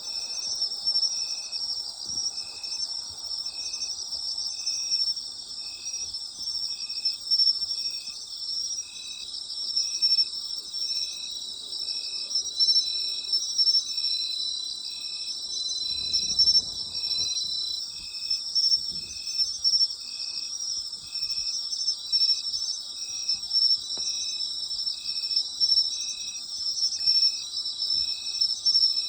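Autumn night insects calling together, several kinds at once in a steady high-pitched chorus, with one chirp repeating at an even rhythm, about three every two seconds. A faint low rumble passes briefly about halfway through.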